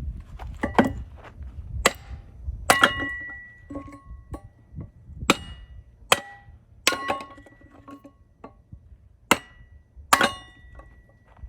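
A series of about ten sharp metallic clanks at irregular intervals, each with a short ring at the same few pitches, as hard metal parts knock together.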